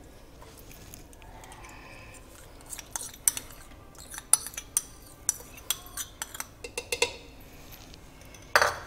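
Kitchen clatter as yogurt is tipped from a plastic tub into a pressure cooker: light clicks and taps of the tub and utensils against the pan. It is quiet at first, then a run of sharp taps from about three seconds in, and a louder knock near the end.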